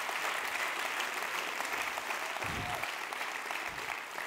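Large seated audience applauding: a steady wash of many hands clapping that eases off slightly near the end.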